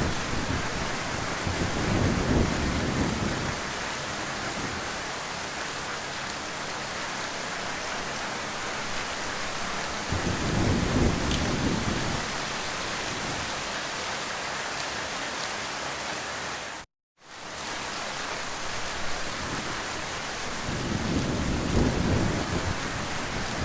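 Heavy rain falling in a steady, even hiss, with slow low rumbles swelling and fading three times. About two-thirds of the way in the sound cuts out completely for a split second, then returns.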